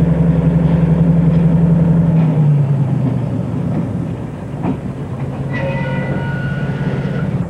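EMD SW1200 switcher's 12-cylinder two-stroke diesel running as the locomotive passes close by, its drone dropping in pitch and fading about two seconds in as it moves off. Freight cars then roll past with a clank, and a high squeal sounds near the end.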